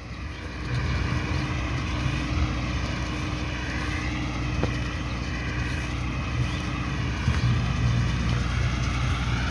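Massey Ferguson 385 tractor's four-cylinder diesel engine running steadily under load as it pulls a toka cutting rice straw: a continuous low drone.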